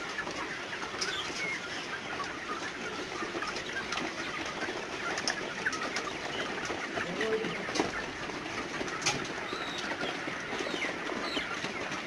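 A large flock of young Hubbard Classic broiler-breeder chickens clucking and cheeping all together as they feed from hanging tube feeders, hungry on a restricted once-a-day ration. A few sharp clicks stand out from the flock's din.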